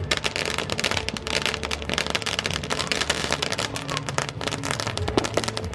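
Firework crackling: a dense, continuous rattle of sharp pops, with a low steady hum underneath.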